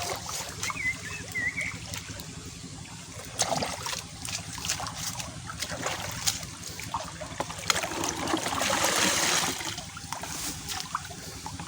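Shallow water splashing and trickling as hands work through a muddy fishing hole, with scattered small knocks and clicks and a louder stretch of splashing near the end.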